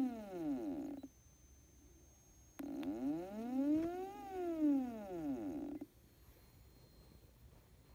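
Stepper motor driving a belt-driven turntable, making a whine that rises in pitch as it speeds up and falls as it slows down for each move. One move ends about a second in; after a pause a second full move lasts about three seconds.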